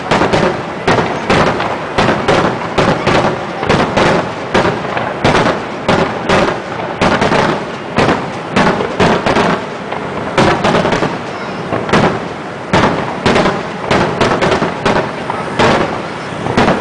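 Aerial fireworks in a rapid barrage, shells bursting one after another with several loud bangs a second and no pause.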